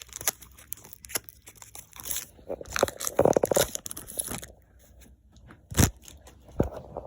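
Trading cards and foil pack wrappers being handled: irregular crinkling and rustling with small clicks, busiest in the middle. Two short dull bumps come near the end.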